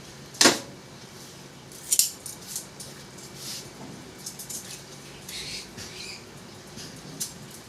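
Sharp metallic clinks and knocks of small parts being handled: a loud one about half a second in, another about two seconds in, then scattered faint ticks.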